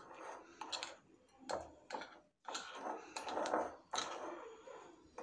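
A metal spoon stirring semolina, curd and spices in a glass bowl: irregular soft scrapes and taps of the spoon against the glass, a second or so apart.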